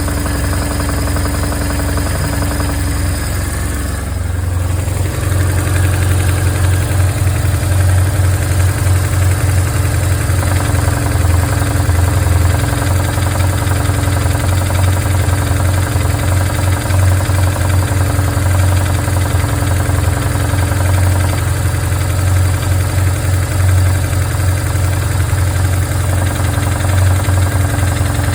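A 2002 BMW R1150R's boxer twin engine idling. About four seconds in, its sound changes and grows louder and heavier, which fits the noise the owner hears when the clutch lever is pulled in.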